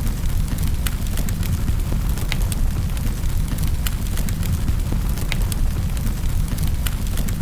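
Wood fire crackling in a fireplace: a steady low roar of flames with frequent sharp pops and snaps scattered irregularly.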